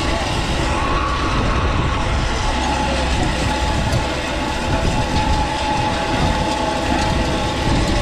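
Caterpillar 289D compact track loader's diesel running under load while its hydraulically driven power box rake turns its rotor through dirt and gravel. A steady mechanical churning and clatter, with a faint steady whine over it.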